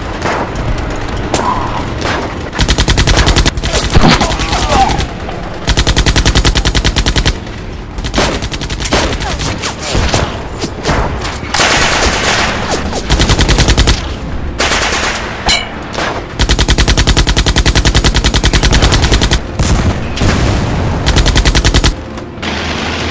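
Battle sound effects of automatic gunfire: five long bursts of rapid machine-gun fire, with scattered single shots and lighter firing between the bursts.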